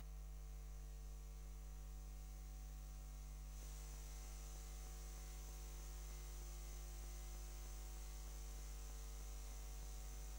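Steady electrical mains hum with faint hiss and no programme sound; a thin high hiss grows louder about three and a half seconds in.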